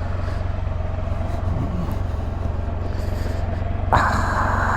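A motor vehicle's engine running steadily with a low pulsing rumble. About four seconds in, a rush of higher noise joins it.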